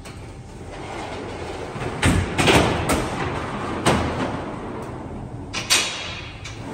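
Steel oven loader frame rolling and sliding on its rails as it is pulled back out of a deck oven, a rumbling rattle with several sharp metal clanks.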